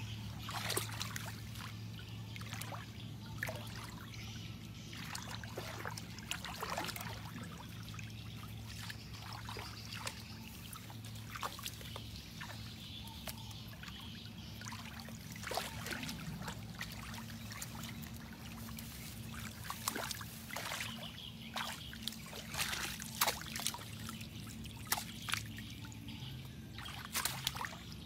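Hands splashing and sloshing in shallow muddy water while feeling for fish, with irregular small splashes, busier near the end.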